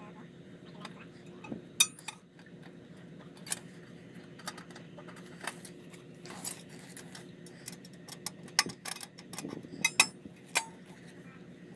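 Small tools and parts being handled during a repair: irregular light clicks and clinks, loudest about two seconds in and again near the end, over a faint steady hum.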